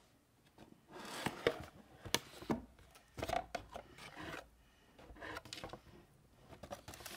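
Cardboard toy box being handled and its lid slid open: irregular rubbing and scraping of cardboard with a few sharp taps, starting about a second in.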